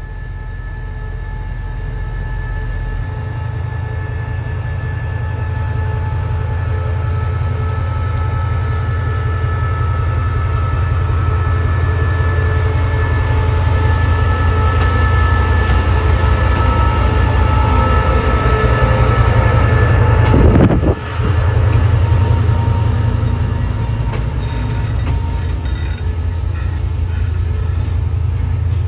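Diesel-electric locomotive of the QSY class running with a heavy low rumble and several steady high tones over it, growing louder over about twenty seconds. The sound drops sharply for a moment about 21 seconds in, then the rumble carries on a little quieter.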